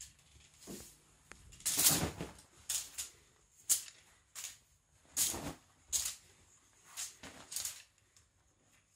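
Irregular bursts of fabric rustling and soft thumps from a cat playing and pouncing on a futon duvet, about seven in all, the loudest about two seconds in.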